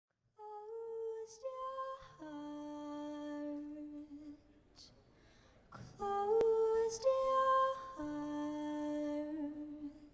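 Female voice humming a slow, wordless melody in two long phrases of held notes, with audible breaths between them.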